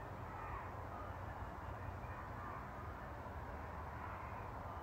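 Faint birds calling a few times in short gliding notes, over a low steady rumble.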